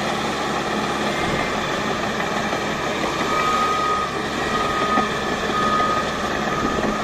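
Heavy construction vehicle's engine running steadily. From about three seconds in, its backup alarm beeps at one pitch, about once a second.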